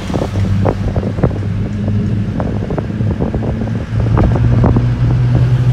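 A public bus's engine running as the bus drives along, its low drone rising in pitch about four seconds in as it speeds up, with frequent rattles and knocks from the bus body and some wind noise from the open windows.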